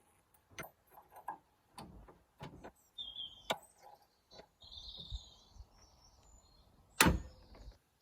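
Scattered clicks and knocks of hand tools and plastic clips being worked loose around a car's wiper linkage, with faint high squeaks. About seven seconds in comes one loud, sharp crack, which sounds to the mechanic like a clip breaking.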